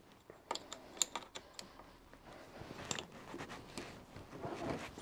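Open-ended spanner clicking against the nuts of a brass steam valve as they are worked: a handful of sharp, light metal clicks spaced irregularly, then softer handling and rustling as the nut is turned by hand near the end.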